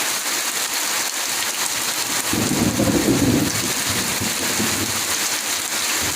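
Heavy rain pouring down in a steady hiss. From about two seconds in, a low rumble swells for a couple of seconds and then fades back under the rain.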